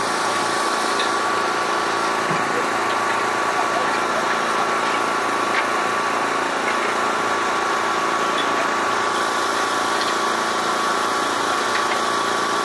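An engine running steadily at idle, with an even hum that does not change.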